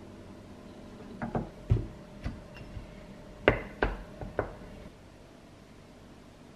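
Glass cookie jar being handled and its glass lid set back on: scattered light knocks, then four sharper glass clinks in quick succession past the middle as the lid seats.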